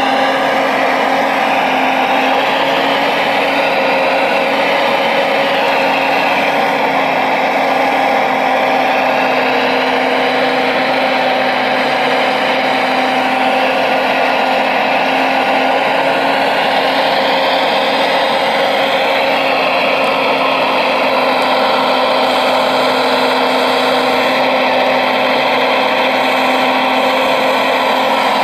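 Electric hydraulic pump of a radio-controlled Liebherr 970 excavator model whining steadily as the boom and log grapple work, its pitch sliding up and down several times as the load changes.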